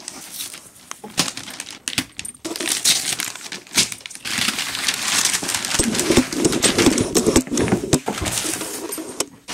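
Wrapping paper crinkling and rustling as it is pulled off a gift-wrapped cardboard box by hand. A few sharp crackles at first, then a denser stretch of rustling from about two and a half seconds in until shortly before the end.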